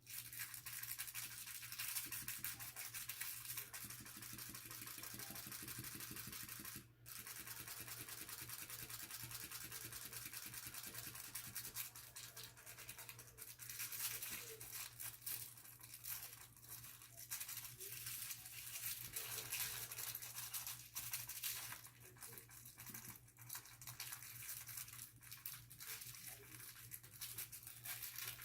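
Small battery-powered motor of an electric flopping fish cat toy buzzing with a rapid rattle. It stops briefly about seven seconds in and becomes more uneven and peaky later.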